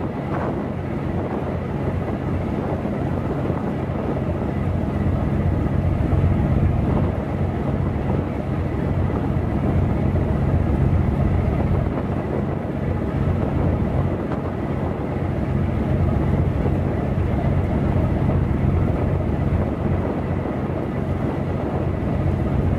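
Steady low engine drone of a gut ship, a crane-equipped sand and gravel carrier, under way at slow speed.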